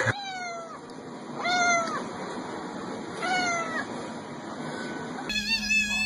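Domestic cat meowing: three drawn-out meows about a second and a half apart, each falling in pitch. About five seconds in, a steady hum comes in and further meowing follows over it.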